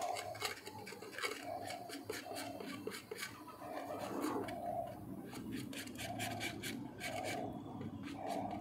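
Steel putty blade scraping and smearing two-part Araldite epoxy on a stone slab in repeated back-and-forth strokes, mixing the resin and hardener together.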